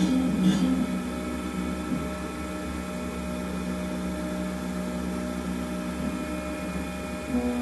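Desktop CNC lathe running a program: the spindle and axis motors make a steady mechanical hum with several steady tones.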